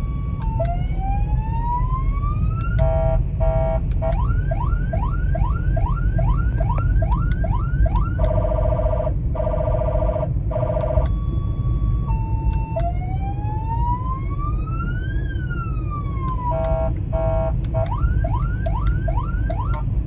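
100-watt remote-controlled car siren (VIP hooter) on its multi-tone setting, cycling through several police-style patterns. It plays a slow rising wail, then short stepped beeps, then quick rising yelps about two a second, then a steady warble, then a long rise and fall. The low road noise of the moving car runs underneath.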